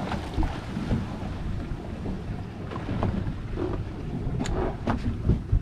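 Wind buffeting the microphone over the rumble of open water around a boat, with a few sharp clicks and knocks near the end.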